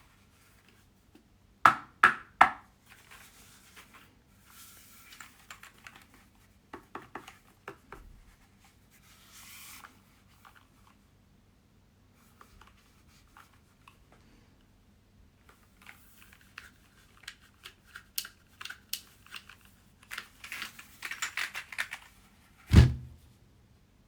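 A mechanical keyboard and its packaging being handled: three sharp clicks about two seconds in, then scattered clicks, rustling and bursts of ticking. There is one heavy thump near the end.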